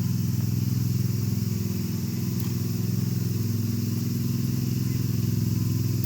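A steady, low engine drone from an idling engine, running evenly.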